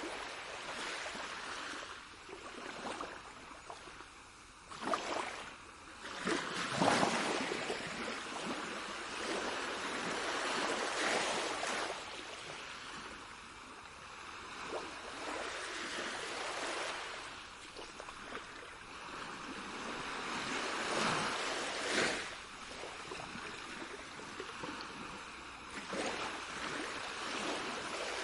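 Moving water rushing and splashing, swelling in irregular surges every few seconds.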